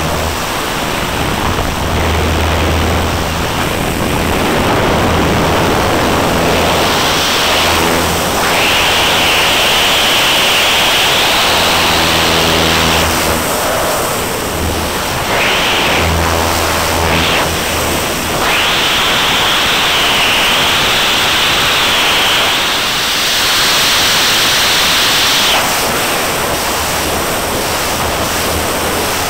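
Wind rushing over the microphone of a small camera mounted on the tail of a Van's RV-8 in flight, with the airplane's piston engine and propeller droning underneath. The rush changes in tone several times as the airplane manoeuvres.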